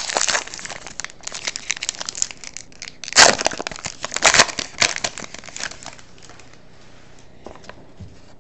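Wrapper of a 2011-12 Panini Titanium hockey card pack being torn open and crinkled by hand, with the loudest rips at about three and four seconds in. The crinkling fades after about six seconds.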